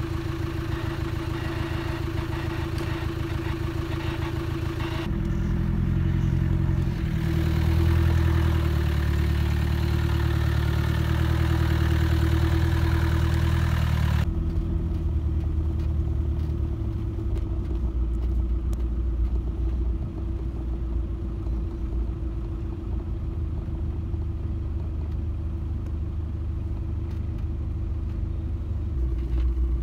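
An off-road 4x4 running steadily, heard from inside the vehicle: a constant engine hum over a low rumble of drivetrain and tyres. The rumble grows heavier about five seconds in and eases back around fourteen seconds.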